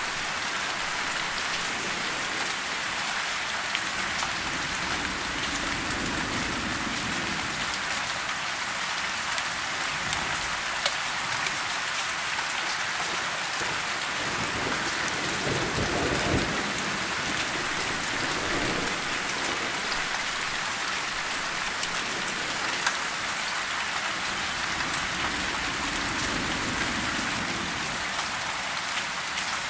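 Steady rain falling on broad tree leaves, with single drops ticking now and then. A low rumble of distant thunder swells about halfway through.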